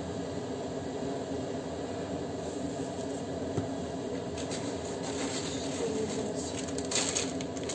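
Steady mechanical hum and whir of a running kitchen appliance, with a short rustle or clatter about seven seconds in.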